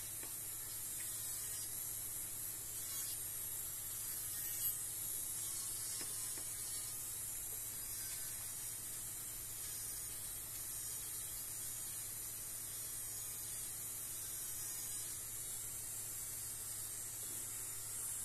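Electric nail drill (e-file) running at low speed, its small bit filing acrylic gel nail tips near the cuticles. It gives a faint whine that wavers as the bit meets the nail, over a steady hiss, with one brief knock a few seconds in.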